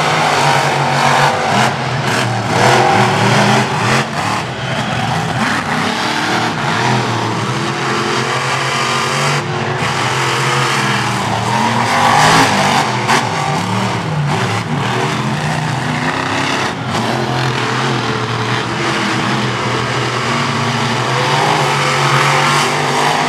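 Monster truck engines running at full throttle during a race, revving up and down in pitch. A heavy thump comes about twelve seconds in as a truck comes down off a jump over the junk cars.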